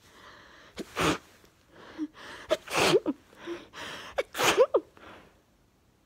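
A woman sneezing three times in a row, each loud sneeze led by a quick breath in, partway through a sneezing fit.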